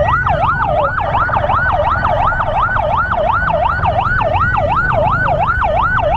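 Electronic emergency siren in fast yelp, sweeping up and down about three to four times a second, with a second, slower wailing siren faintly behind it at times. A steady low rumble of engine and wind runs underneath.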